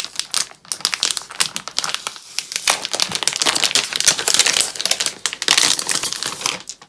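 Plastic packaging crinkling and crackling as it is handled, in a dense, irregular run of crackles.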